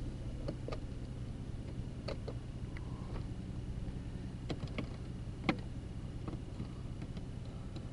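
Low steady hum of a Mercedes CL600's twin-turbo V12 idling, heard from inside the cabin, with scattered light clicks as the sun visor and overhead console buttons are handled.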